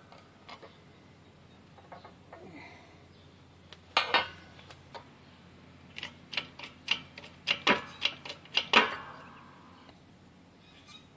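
Steel broaching tools clinking and tapping against an aluminium pulley as they are handled: a couple of knocks about four seconds in, then a quick run of about eight sharp metallic clicks with a light ring.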